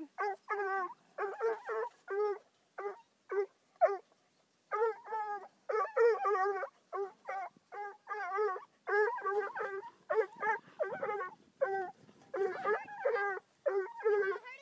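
Bluetick coonhound puppy barking and baying at a raccoon in a live trap, in quick strings of short calls, two or more a second, with a short pause about four seconds in.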